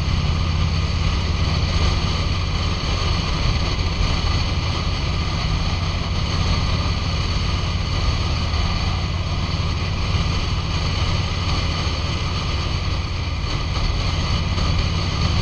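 2005 Harley-Davidson Road King's Twin Cam 88 V-twin running steadily while riding at speed, under heavy wind rush on the microphone.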